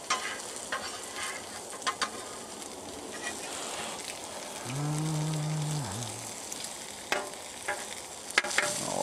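Bacon, sausages and pancakes sizzling on a Blackstone flat-top griddle, with scattered clicks and scrapes of a metal spatula on the steel cooktop as the food is moved and turned. About five seconds in, a low held tone lasts a little over a second above the sizzle.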